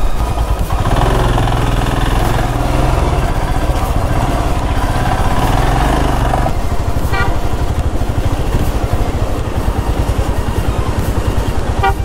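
Motorcycle engine running with a steady, fast exhaust pulse as the bike rides along a wet road, with tyre and wind noise over it. The throttle eases off about halfway through and the engine note drops back.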